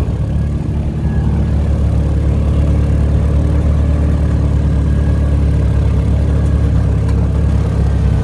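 Yamaha Rhino 700 side-by-side's single-cylinder engine running steadily as the vehicle drives along.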